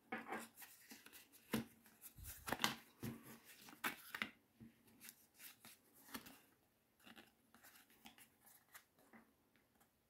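Paper perfume sample card being handled and folded open in the hand: dense crackling and crinkling of thin card for about four seconds, then sparser crinkles and small taps.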